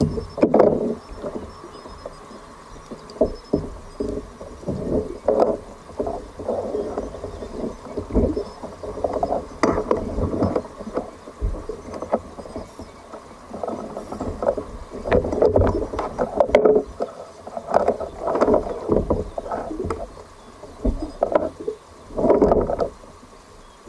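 Water sloshing and splashing irregularly against a sea kayak, in uneven surges, with low rumbling underneath.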